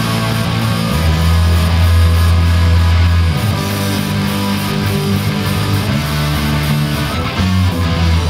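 Live rock band playing through amplifiers: electric guitars and bass guitar, with long, held low notes.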